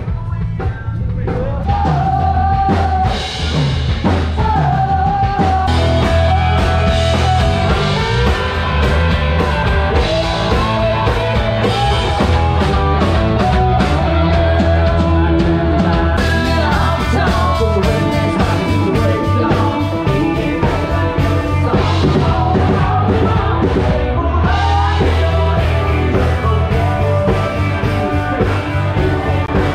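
Live rock band playing amplified through PA speakers: electric guitar and drum kit with a singer.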